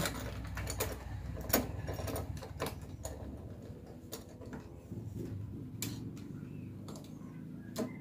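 Scattered light clicks and taps of the metal parts of a doorknob lock set being handled and fitted together, over a faint low hum.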